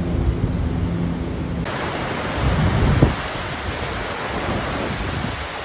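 Steady rushing roar of the Niagara River's churning whitewater rapids. About a second and a half in, the sound switches abruptly to a different recording. Before that a low steady hum lies under the water noise; after it the rushing is fuller and brighter, with a brief low rumble around three seconds in.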